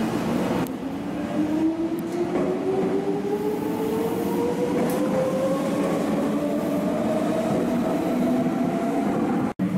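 Meitetsu electric train pulling out of an underground station platform: its traction motors whine, rising steadily in pitch as it accelerates over a running rumble of wheels on rail.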